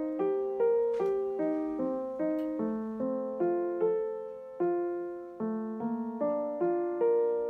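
Background piano music: a gentle melody of single notes, each struck and dying away, about two to three a second.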